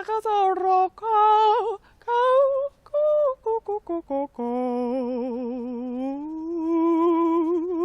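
A woman's voice chanting and toning wordless syllables. First come a few wavering sung notes, then a quick run of short, clipped syllables about three to four seconds in. It ends on a long held note with a wide, fast vibrato that slides up in pitch about six seconds in.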